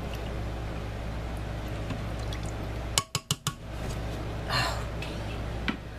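Cookware being handled in the kitchen: four quick sharp taps close together about three seconds in, then a short rustle, over a steady low hum.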